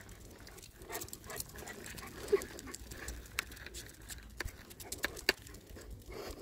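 Dog out on a leash walk: scattered light clicks and scuffs, with a short whine about two seconds in.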